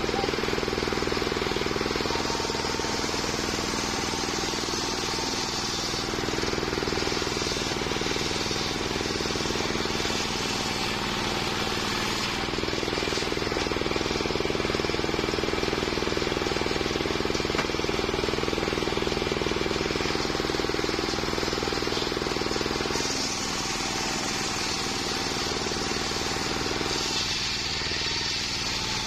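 Homemade circular sawmill running steadily, its motor droning under the hiss of the blade sawing waru wood into boards. The hiss changes in strength several times as the cut goes on.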